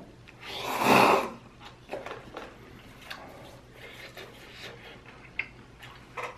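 A loud slurp of instant noodles from a paper cup, starting about half a second in and lasting under a second. It is followed by quieter chewing and scattered small mouth clicks.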